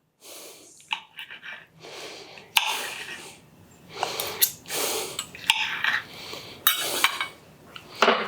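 A man tasting food: sharp clicks of cutlery on a plate among repeated loud, hissy breaths through the nose and mouth.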